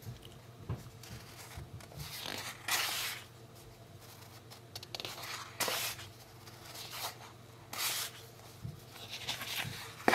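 Stiff sticker sheets rustling and sliding against each other as they are leafed through by hand, in several short bursts.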